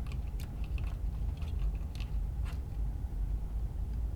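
Light clicks and taps of a small fan being handled and lined up in its mount, mostly in the first couple of seconds, over a steady low hum.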